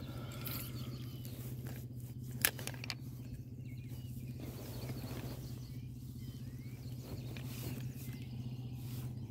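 Outdoor ambience: a steady low hum with faint bird chirps, and one sharp click about two and a half seconds in.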